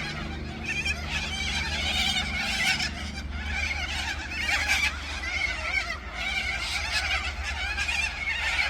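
A large flock of corellas screeching and calling together in a continuous dense chorus, with a steady low hum underneath.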